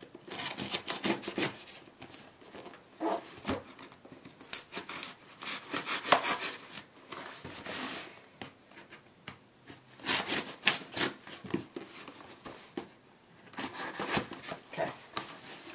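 Knife blade slicing and scraping through packing tape on a cardboard shipping box, with the cardboard rubbing and rustling, in several scratchy bursts with short pauses.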